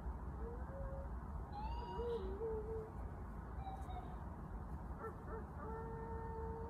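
A person howling in imitation of a wolf, faint and far off: a few short wavering howls, then a long steady howl near the end that drops in pitch. A steady low rumble runs underneath.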